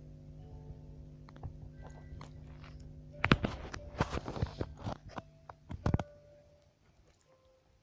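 Steady electrical hum, then a burst of loud crackling and clicks from about three seconds in that dies away about three seconds later.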